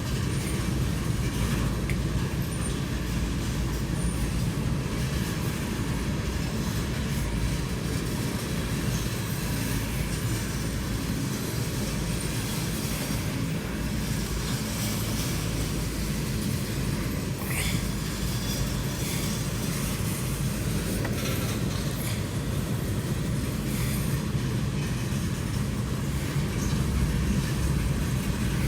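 Freight train of coal cars rolling past, a steady rumble of steel wheels on the rails, with a brief faint wheel squeal about two-thirds of the way through.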